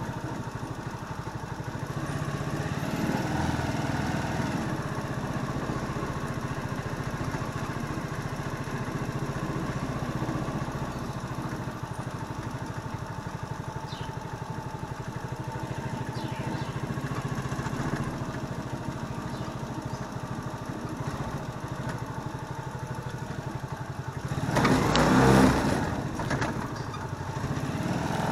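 A small engine running steadily with a rapid, even firing pulse, and a louder rush of noise near the end.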